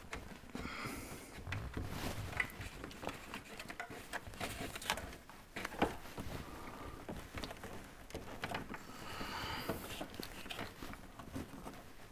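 Hands working a thin wire through a hole behind a car dashboard: rustling with light, irregular clicks and taps.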